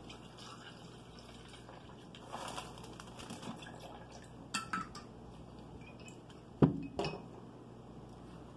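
Drink bottles and their caps being handled for a mixed drink: a short hiss, a few light clicks, then two sharp knocks in quick succession about two-thirds of the way in.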